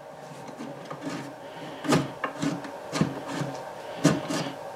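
A handful of short wooden knocks and rubbing as a brass hinge pin is handled and fitted into its hole in a mahogany tool chest, the sharpest knocks about two, three and four seconds in.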